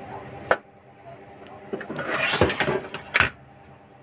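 Handling noise from working on a set-top box and its power supply board: a sharp click about half a second in, a stretch of rubbing and scraping around two seconds, and another sharp knock just after three seconds.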